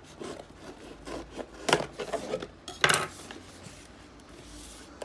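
A kitchen knife cutting through the seal sticker on a cardboard box, in short scraping strokes, the two loudest under two seconds in and about three seconds in, followed by softer cardboard rustling as the box flaps are opened.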